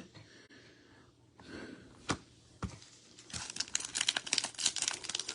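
Foil wrapper of a trading card pack being torn open and crinkled in the hands. It starts with a few sharp clicks, then turns into dense, continuous crinkling from about three seconds in.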